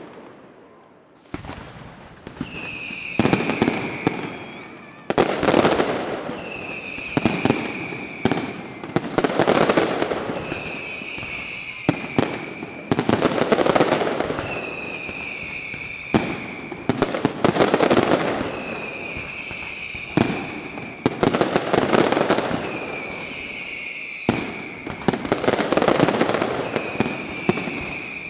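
Fireworks display: loud bangs with crackle about every two seconds, each followed by a whistle lasting over a second that falls slightly in pitch.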